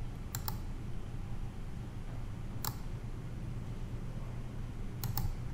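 Steady low hum with a few short, sharp clicks: a quick double click just after the start, a single click near the middle, and another double click near the end.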